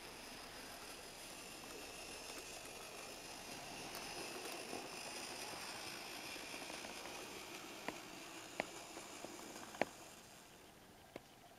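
Märklin H0 model diesel shunting locomotive (DB class 365) with a high-performance motor conversion running along the track: a faint steady motor whine and wheel rumble that swells as it passes close and then fades. A few sharp clicks follow from about eight seconds in, the loudest near the end.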